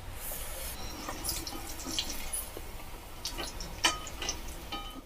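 Vegetable Manchurian balls sizzling as they deep-fry in hot oil in a wok. Near the end come a few light clinks as a wire strainer and spatula work the pan to lift them out.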